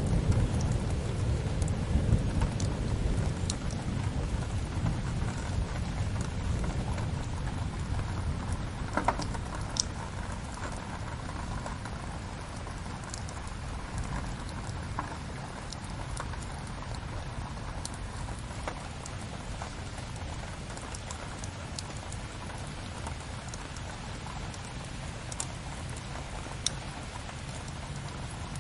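Steady rain with a low rumble of thunder dying away over the first ten seconds or so, and scattered sharp crackles and pops from a wood fire.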